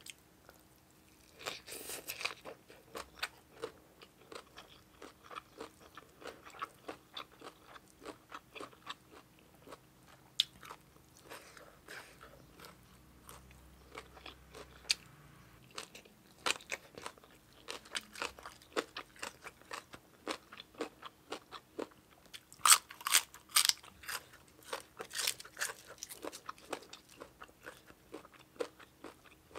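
Close-miked chewing and crunching of spicy papaya salad with rice noodles and raw vegetables, in irregular bites with small wet mouth clicks. The loudest crunching comes in two bursts in the last third.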